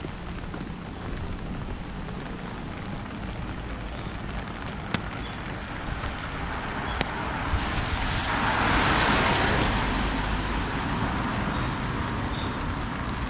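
Rainy city street: a steady hiss of rain and traffic with a low rumble. About eight seconds in, the hiss of a vehicle's tyres on the wet road swells and fades as it passes.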